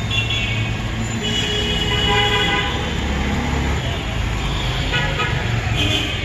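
Busy street traffic: engines running steadily underneath while vehicle horns honk several times, one held for over a second about a second in.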